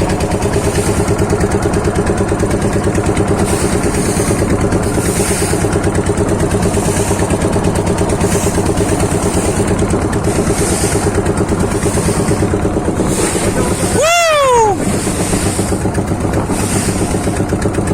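Motorboat engine running steadily with a fast, even chug. About fourteen seconds in, a person's voice gives one long rising-and-falling exclamation over it.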